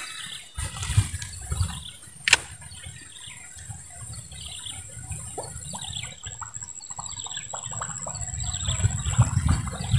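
A baitcasting reel winding a lure back in, with light ticks through the retrieve and one sharp click about two seconds in. Wind rumbles on the microphone throughout, and a faint, high, steady whine joins about six seconds in.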